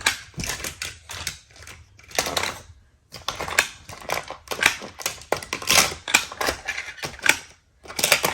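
Die-cast toy cars and a plastic track playset clicking and rattling in quick, uneven runs as the cars are handled and run along the track, with short pauses about three seconds in and near the end.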